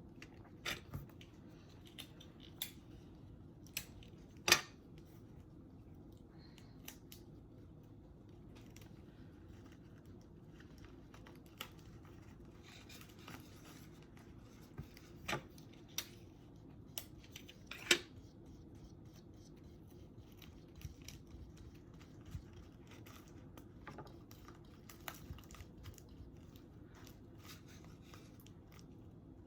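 Scattered small clicks and taps of craft work at a table, the sharpest a little after four seconds in and near eighteen seconds, over a low steady hum.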